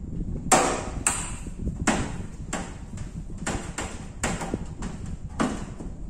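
Sheet-metal casing of a microwave oven being handled, giving a series of sharp metallic knocks and clanks at irregular intervals, the loudest about half a second in.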